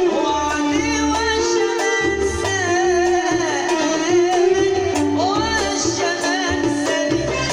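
A Moroccan song: a woman's voice singing an ornamented, wavering melody over an ensemble with sustained accompaniment and a steady low bass and drum pulse.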